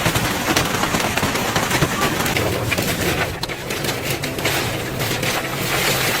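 Hail pelting down in a dense, continuous clatter of small impacts, driven by strong wind.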